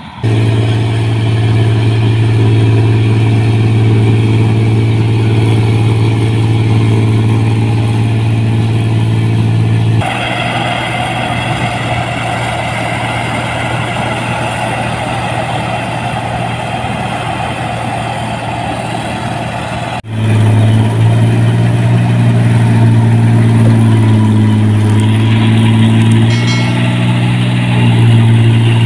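Rice combine harvesters running steadily while cutting paddy, in several clips one after another. The engine drone changes abruptly about ten seconds in and again about twenty seconds in, and its pitch shifts a little near the end.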